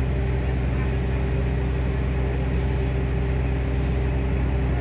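Steady low drone of the ferry's engine machinery running while its bow ramp door is lowered, with no clanks or knocks.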